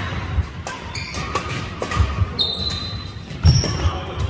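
Badminton doubles rally: rackets striking the shuttlecock several times, sharp and echoing, with court shoes squeaking on the wooden floor and feet thudding. One long squeak comes just past the middle.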